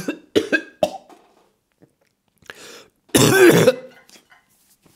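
A man coughing and clearing his throat: a few short coughs in the first second, then one loud cough about three seconds in.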